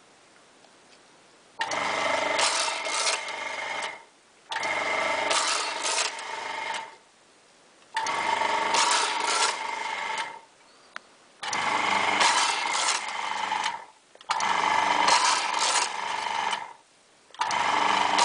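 Magma Star lubrisizer driven by an electric half-horsepower motor, running one full revolution per button press. It runs six cycles of about two and a half seconds each, with a short pause between them, with a steady whirring tone in each.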